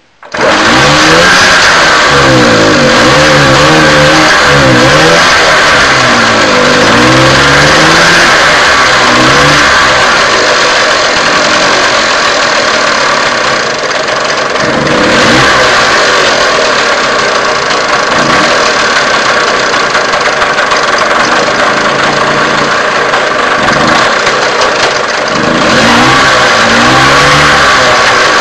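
Victoria Vicky IV moped's single-cylinder two-stroke engine starting abruptly and running loud. It is revved up and down over and over for the first ten seconds or so, runs more steadily through the middle with a few short blips, and is revved up and down again near the end.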